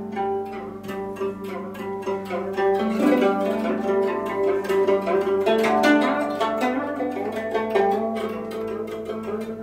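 Guzheng, the Chinese plucked zither, played solo at speed: a dense run of plucked notes ringing over one another, growing louder about three seconds in.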